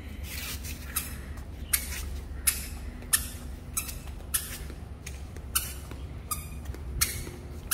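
A toddler's footsteps on a tiled floor: short, sharp steps at a steady walking pace, about three every two seconds, over a low steady rumble.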